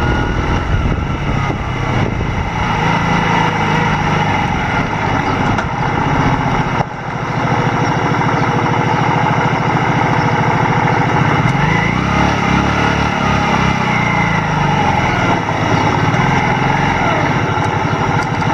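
Honda Shadow 125's small V-twin engine running while riding, with a steady rushing noise; the engine note changes pitch several times, with a short sudden drop about seven seconds in and a rise and fall around twelve to fourteen seconds in.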